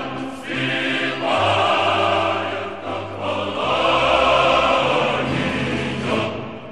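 Choral music: a choir singing long held chords that change every second or two.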